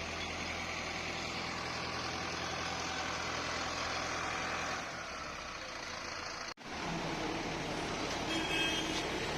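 Tractor engine idling steadily; its low hum weakens about five seconds in, and the sound drops out for an instant about two-thirds of the way through before carrying on.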